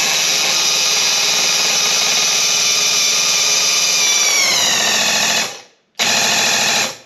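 Graco Ultimate QuickShot airless paint sprayer's pump motor running steadily, its pitch falling after about four seconds before it stops. It runs again for about a second near the end. It is pushing primer through the hose to the gun.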